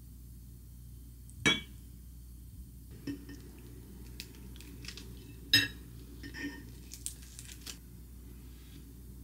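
Tableware sounds: a single ringing glass clink about a second and a half in, then kitchen scissors snipping through toasted bread, with several clicks against a ceramic plate, the loudest about halfway through.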